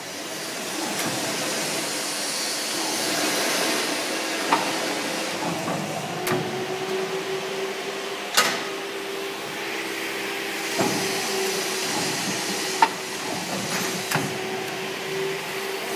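Tyre-building drum's segmented steel shell moving closed during a test run: a steady mechanical hiss with several sharp metallic clicks and knocks, and a steady hum that comes in about six seconds in.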